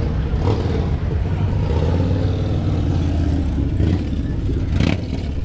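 Low, steady rumble of motorcycle engines running, with one engine note rising and falling in the middle. A brief sharp knock near the end.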